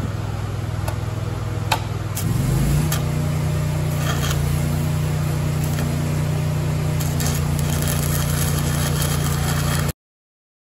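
Stick welding on steel plate: the electrode clicks and scratches as the arc is struck a few times, then the arc crackles and sizzles, louder near the end. Under it an engine-driven welding machine runs steadily, its engine picking up speed about two seconds in and holding there. The sound cuts off abruptly just before the end.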